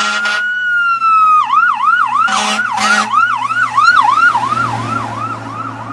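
Emergency vehicle siren: a slow wail rising and falling, which switches about a second and a half in to a fast yelp of about three sweeps a second, with two short blasts near the middle.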